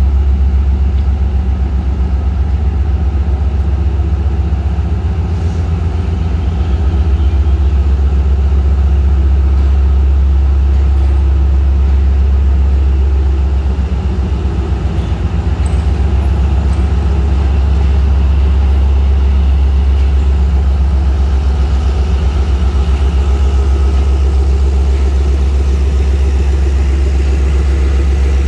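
ZCU-30 diesel-electric locomotive's engine running with a deep, steady drone as it pulls a passenger train out and passes close by.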